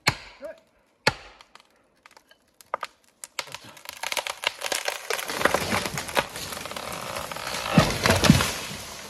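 Three sharp hatchet blows at the base of a tree, then the tree goes over: a long run of cracking and snapping as it breaks through branches, ending in heavy thuds as it hits the ground near the end.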